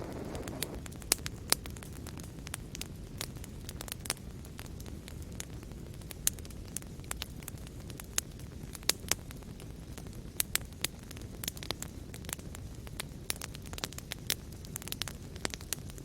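Wood fire crackling in a fireplace: a steady low rumble and hiss broken by many irregular sharp pops and snaps.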